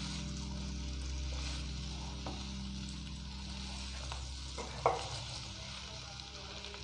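Spiced potato filling sizzling in hot oil in a pan while a perforated steel skimmer stirs and presses it into a mash, with occasional scrapes of the metal on the pan and a sharper clink about five seconds in. A low steady hum runs underneath.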